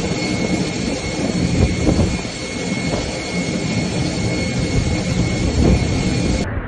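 A flydubai Boeing 737's jet engines running as the airliner taxis through deep floodwater: a steady high whine over a rushing noise. It cuts off suddenly near the end.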